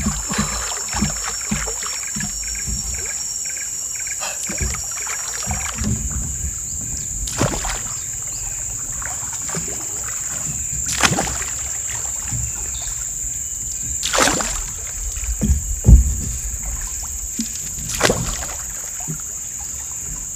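A paddle splashing in river water as a raft moves downstream: a handful of separate strokes a few seconds apart, with smaller splashes and knocks in between, over a steady high insect buzz.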